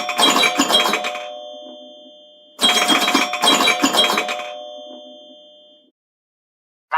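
iPhone's classic "Doorbell" ringtone, a ding-dong doorbell chime. The second stroke of one ring is heard first, then a second full ding-dong about two and a half seconds in. Each ring fades away over about three seconds before it stops.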